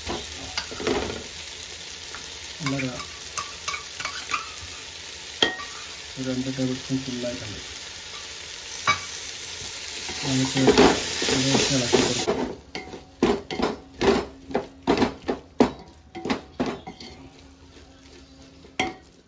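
Food sizzling in a hot pan while a spoon stirs and scrapes, with scattered clicks of metal on metal. About two thirds of the way through, the sizzle cuts off suddenly and only a run of sharp spoon taps and knocks remains.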